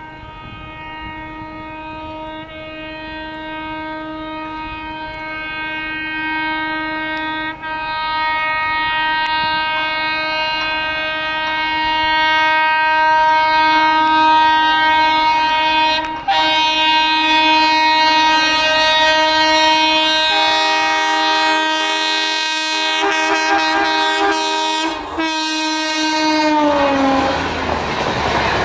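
Indian Railways locomotive horn held in one long, nearly unbroken blast that grows louder as the train approaches, dipping briefly twice. Near the end its pitch drops as the locomotive passes, and the rumble of the passing coaches on the rails takes over.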